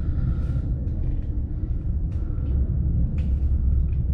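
A steady low rumble, with a few brief hisses breaking in over it.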